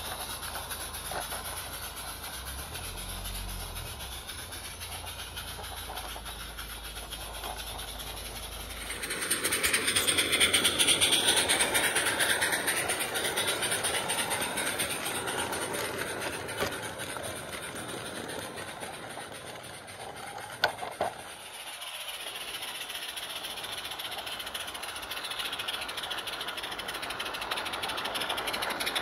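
Live-steam garden-railway locomotive, a 7/8ths-scale Accucraft Edrig conversion, running with a train of small wagons: hissing steam and the clatter of little wheels on the track. The sound swells about nine seconds in as the train passes close, and there are a few sharp clicks about twenty seconds in.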